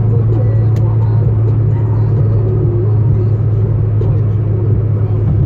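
Steady drone of a car at motorway speed heard from inside the cabin: engine and tyre noise with a strong, even low hum and no change in pace.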